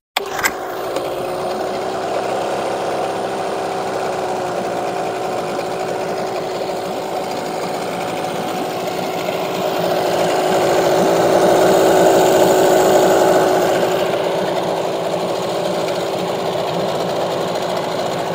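Hangkai outboard motor starting up, catching at once and running steadily. It gets louder for a few seconds past the middle, then settles back.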